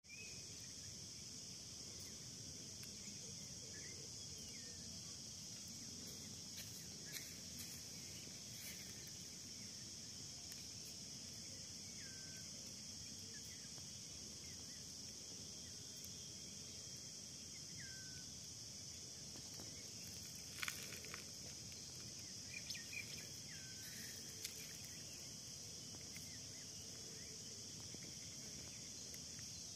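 Faint steady high-pitched insect chorus, with a few short falling bird chirps and a couple of sharp clicks about two-thirds of the way through.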